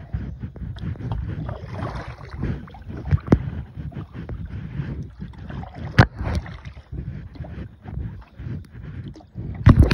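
Paddling a Pelican Catch 120 kayak: irregular splashing of paddle strokes through the water, with a few sharp knocks, the loudest about six seconds in, over rumbling handling noise. The recording is slightly muffled by the protective case on the recording phone.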